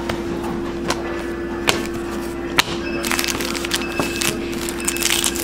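Trading cards and foil card packs being handled on a table: a few sharp clicks as cards are flicked and set down, then from about three seconds in a dense run of crinkling and clicking. A steady hum sits underneath.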